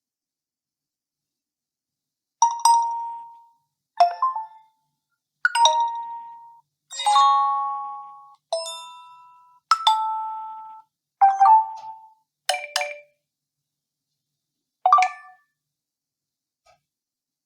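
A Nokia 1 DS phone playing its preset notification tones one after another: about nine short electronic chimes, each a different ding that fades out within a second, with brief silences between.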